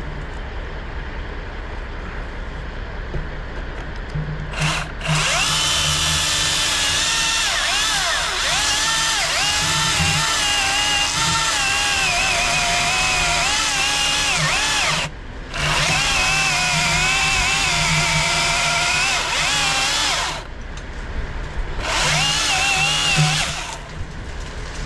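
Milwaukee battery chainsaw cutting wood: its electric motor whine starts about five seconds in and runs about ten seconds, stops for a moment, runs about five seconds more, then gives a short final burst near the end. The pitch sags and recovers as the chain bites into the wood. A steady low hum runs underneath throughout.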